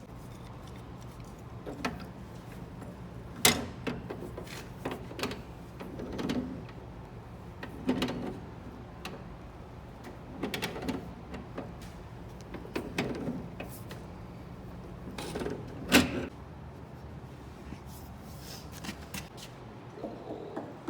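Scattered clicks and knocks of plumbing fittings and tools being handled, two of them sharper than the rest, over a steady low hum that stops near the end.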